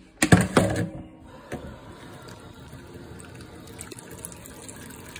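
A few loud knocks and clatter in the first second, then water running steadily from a tap.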